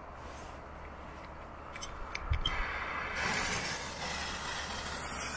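Green fuse of a small hand-held firework burning with a steady fizzing hiss from about three seconds in, after a few sharp clicks.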